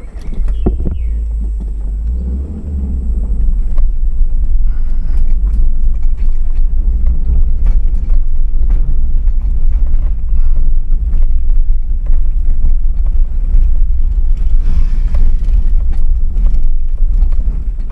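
Inside a car driving slowly over a rough dirt track: a heavy, steady low rumble from the engine and road, with frequent short knocks and rattles as the car bumps along.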